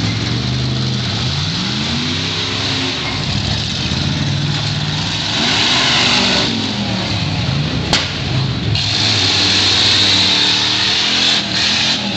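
Demolition derby cars' V8 engines revving hard, their pitch rising and falling again and again, with a single sharp bang about eight seconds in.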